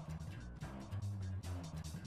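Music with a low, sustained bass line under quick, steady drum hits.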